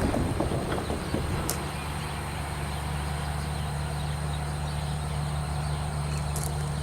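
An engine idling with a steady low hum, after rough rail noise dies away in the first second or so.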